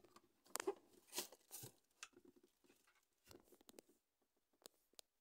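Faint scattered clicks and rustles of small objects being moved and knocked, the loudest cluster in the first two seconds and two sharp clicks near the end.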